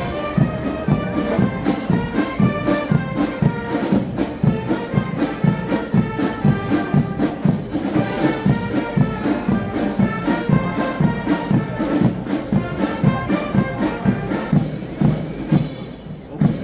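Brass band playing a march, with held brass notes over a steady beat, fading near the end.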